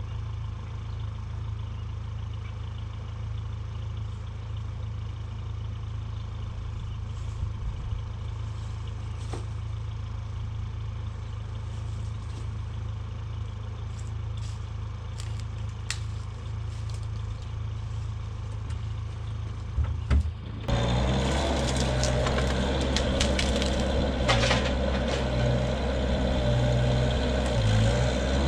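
Engine of a Vermeer S800TX mini loader running steadily at low speed, with a few light knocks, then throttled up and running louder about twenty seconds in, as it works under load.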